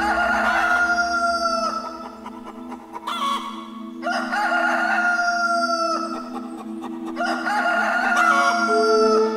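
A rooster crows three times, each crow about two seconds long: a held call that drops in pitch at the end. Steady background music tones play underneath, and a new musical note comes in near the end.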